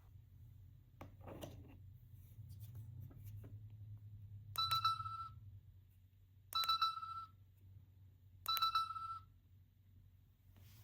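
Small gachapon sound toy's tiny speaker playing a short electronic tone three times, about two seconds apart, each tone under a second long and starting with a click. A few faint clicks come earlier.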